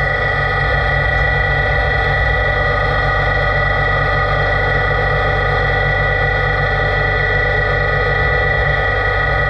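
LT-65 lathe running steadily: a constant high whine with several steady tones over a heavy low hum, unchanging throughout.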